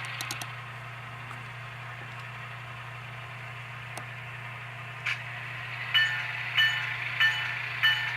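Model ALCO C424 locomotive's Tsunami sound decoder playing diesel engine idle through its small onboard speaker, a steady hum. From about six seconds in, the decoder's bell rings in even strokes, about one and a half a second.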